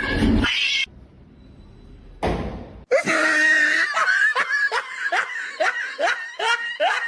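A person laughing in quick, repeated bursts, about two to three a second, after a short break in the sound.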